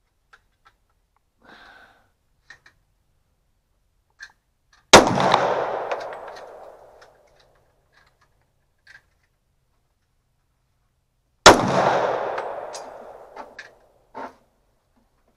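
Two shots from a Smith & Wesson .40-caliber pistol, about six and a half seconds apart, each followed by an echo dying away over about two seconds. A few faint clicks come between them.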